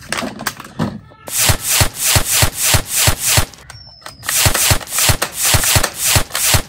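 Rapid shots from a toy machine gun, about four a second, in two bursts of roughly nine shots with a short pause between them.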